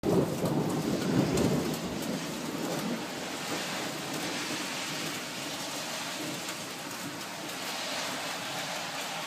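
Steady rain falling during a thunderstorm, with a low rumble of thunder in the first two or three seconds that dies away.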